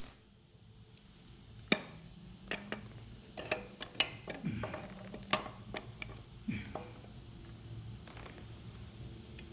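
Metal clicks and clinks of pliers and steel parts against the clutch bellhousing as the clutch release lever and thrust bearing are worked into place by hand. The sharp clicks come scattered between about two and seven seconds in, then it goes quieter.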